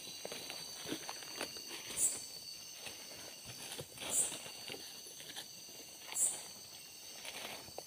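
Footsteps through forest undergrowth at night, with twigs and leaves crackling underfoot. Behind them, night insects keep up a steady high buzz, and a short high chirp repeats about every two seconds.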